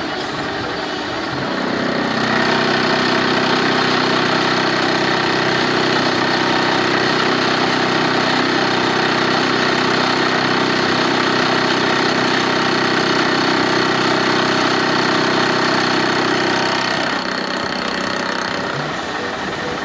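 Milling machine running with a steady mechanical hum, getting louder about two seconds in and dropping back down a couple of seconds before the end.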